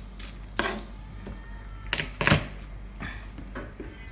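Kitchen knife tapping and knocking on a plastic cutting board a few times while garlic cloves are trimmed and peeled, the loudest knocks about two seconds in.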